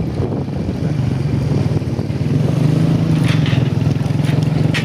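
An engine running steadily, growing louder about two seconds in, with a few short clicks near the end.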